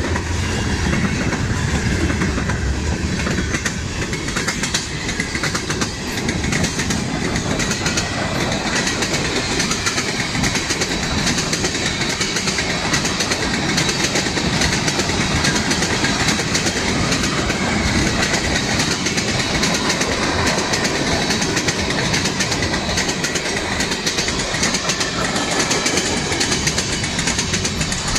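Freight train's covered hoppers and tank cars rolling past: a steady rumble of steel wheels on rail, laced with quick clicks as the wheels cross rail joints.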